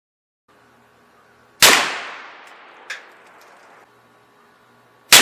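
Two .350 Legend rifle shots about three and a half seconds apart, each a loud crack followed by an echo that dies away over about two seconds. A fainter, short sharp knock comes about a second after the first shot. The first shot lands about one and a half seconds in, after a moment of dead silence, and the second right at the end.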